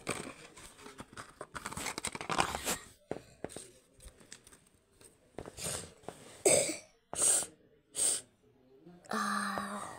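A person coughing: three short, sharp coughs about a second apart in the second half, the loudest sounds here, after a few fainter ones.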